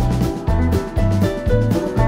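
Background music with a steady beat of about two beats a second, bass notes under a melody.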